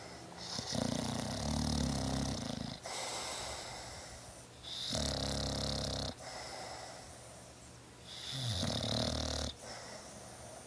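English bulldog snoring in its sleep: three loud snores about four seconds apart, each lasting one to two seconds, with quieter breathing between them.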